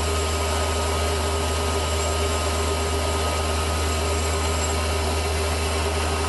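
Small metal-turning lathe running, its motor and spindle giving a steady low hum with a few thin high whining tones as it turns a small part.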